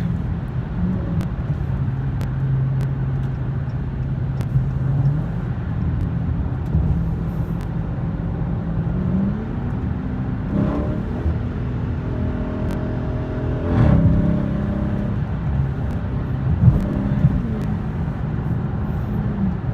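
6.4-litre HEMI V8 exhaust through Dynomax mini race bullet resonators with the mid-muffler deleted, heard from inside the cabin: a steady drone while driving, with the revs rising for a moment about halfway through and a couple of short knocks.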